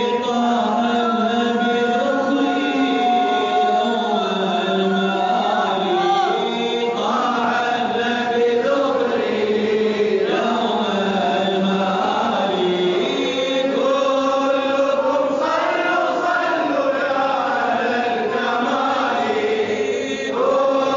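A man's voice chanting an Arabic madih, an Islamic devotional praise song, in long, drawn-out melodic lines with no percussion.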